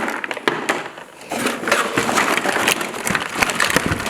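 Plastic toy parts of a Nerf blaster being handled, giving an irregular run of clicks, knocks and rattles.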